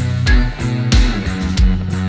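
Background rock music with a steady beat, about three beats every two seconds.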